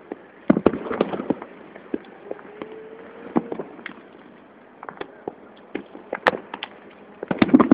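Firecrackers and fireworks going off across the town: scattered sharp bangs and pops at irregular intervals. They come thickest about half a second in and again near the end, with a lighter crackle between.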